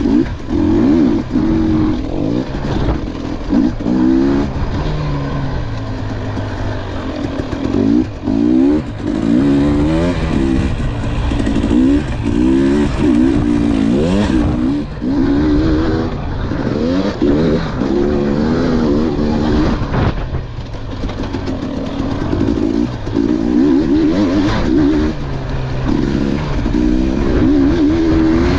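KTM 300 XC two-stroke dirt bike engine revving hard. Its pitch rises and falls again and again as the throttle is opened and shut, with a brief easing off about two-thirds of the way through.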